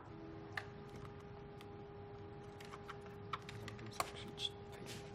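Faint scattered clicks and ticks of a screwdriver and small metal parts being handled while screws come out of a ventilator's connector plate, over a faint steady hum.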